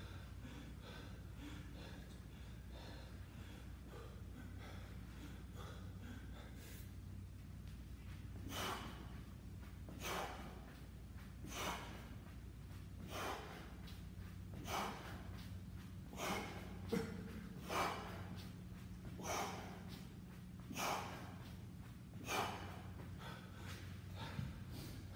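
A man's sharp, forceful exhalations, one about every second and a half, starting about eight seconds in and paced with each kettlebell swing during a swing-to-reverse-lunge set. The effort breathing of hard conditioning work.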